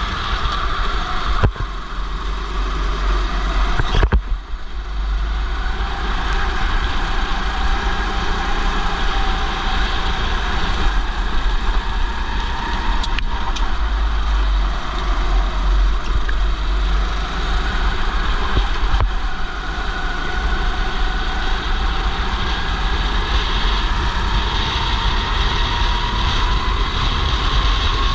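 Racing go-kart's engine running under load with its pitch rising and falling with the throttle through the corners, heard among other karts from the driver's helmet, with heavy wind rumble on the microphone. Two sharp knocks come in the first four seconds.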